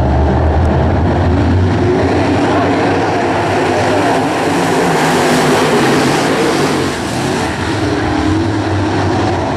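Pack of crate late model dirt race cars' V8 engines running loud as they race by, the sound swelling to its loudest about five to six seconds in and dipping briefly a second later.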